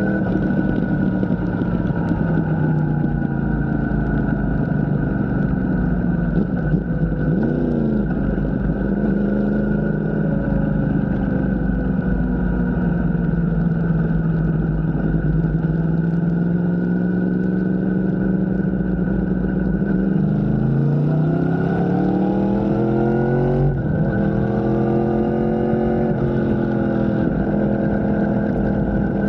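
A vehicle engine running, its pitch rising and falling slowly as it revs. A quick dip and rise comes about seven seconds in, and a longer climb breaks off suddenly near the end.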